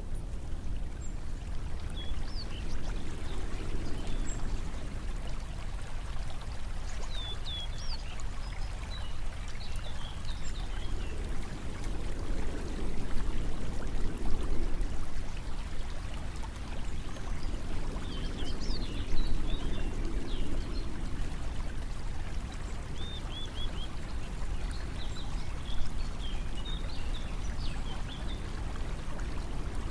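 Steady flowing water, swelling and easing every few seconds, with small birds chirping now and then.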